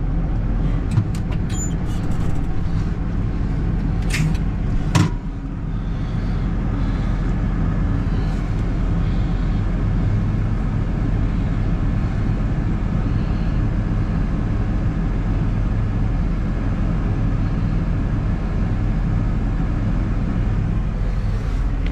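Heavy farm diesel engine running steadily while the full combine is unloaded, with a few sharp knocks about a second in and a loud one about five seconds in.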